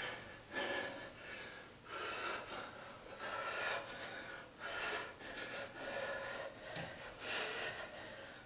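A man breathing hard from exertion, a quick string of short breaths in and out, about one a second.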